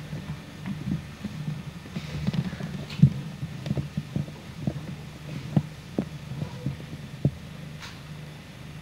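Steady low electrical hum with scattered faint clicks and knocks, the loudest about three seconds in.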